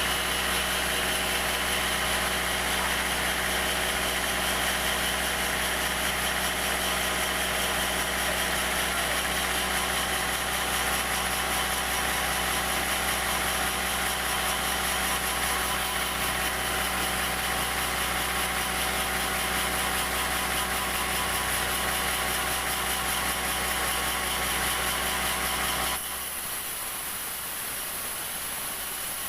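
Sawmill engine running steadily at idle, not under cutting load. About three seconds before the end the deep rumble drops away and the sound gets slightly quieter.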